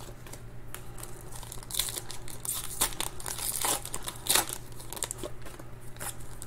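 Foil wrappers of Panini Certified football card packs crinkling and tearing in the hands as the packs are opened, in many irregular sharp crinkles over a steady low hum.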